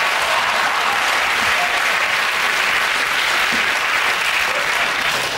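Studio audience applauding.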